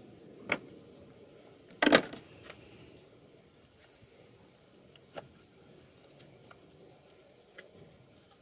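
A few sharp metallic clicks and knocks from hand tools and parts being handled under the hood, the loudest a short clatter about two seconds in, with single knocks near the start, about five seconds in and near the end.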